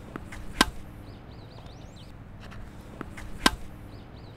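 A tennis ball is struck by a racket twice, about three seconds apart, each strike a sharp pop just after a fainter bounce on the court. Birds chirp faintly between the shots.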